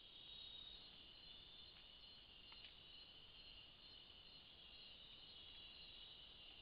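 Faint, steady high-pitched trilling of a night insect chorus in tropical rainforest.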